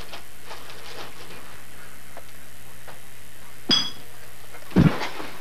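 A glass bottle clinks once with a short high ring, followed about a second later by a louder, deep thump.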